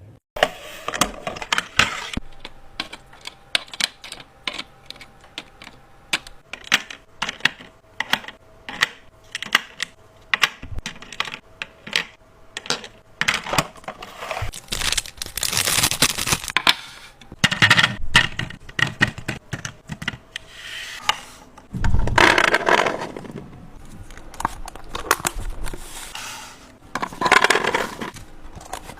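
Kitchen clatter of food containers, lids and utensils being handled: a quick run of small hard clicks and knocks, with a few longer scraping or rustling noises of about a second each.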